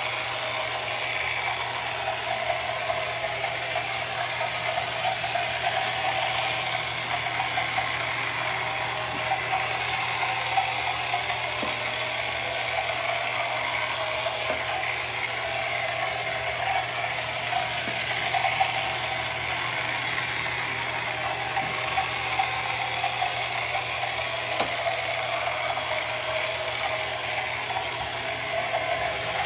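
1968 Ideal Motorific toy outboard motor running steadily, propelling the boat through bathwater: its small battery-powered electric motor and gear train make a continuous whirring rattle.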